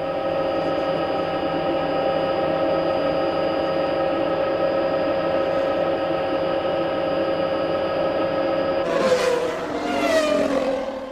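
Formula One car engine holding a steady high-pitched note at constant revs. About nine seconds in, the note breaks into two shorter swells where its pitch shifts, with a harsher rasp.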